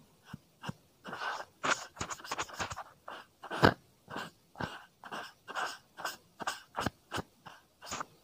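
Short crinkly scratching and rustling strokes close to the microphone, irregular at about two or three a second, with one louder stroke about three and a half seconds in. This is ASMR foley meant to imitate fingers scrubbing hair during a hair wash.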